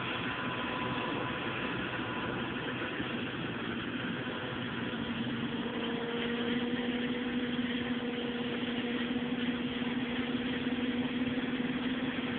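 John Deere W540 combine harvester running as it harvests rapeseed: a steady engine and threshing drone with a hiss over it, a low hum growing stronger about halfway through.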